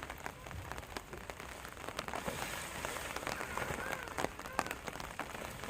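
Steady rain falling, with many sharp drop hits.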